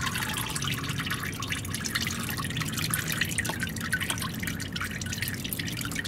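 Used engine oil dripping and trickling into a plastic drain pan already full of oil, a rapid, steady patter of drops.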